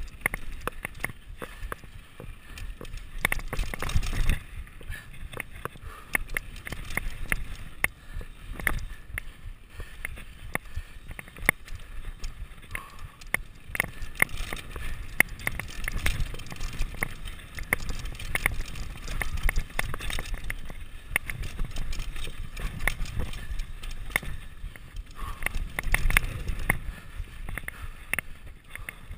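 Mountain bike clattering down a rough dirt trail at speed: trail chatter, a dense stream of sharp clicks and knocks from the bike over the ground, over tyre noise and a low rumble that swells a few times.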